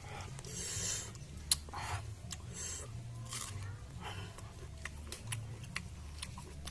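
Close-up noises of fruit being handled and eaten: short crisp and wet mouth and handling noises, with a sharp click about a second and a half in.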